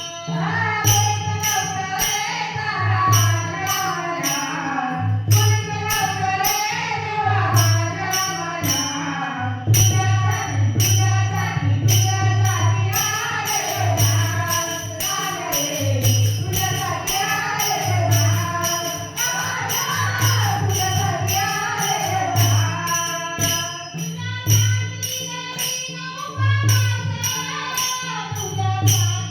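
A woman singing a Marathi gaulan, a devotional folk song, with a wavering melodic line over a steady drum beat and regular jingling percussion.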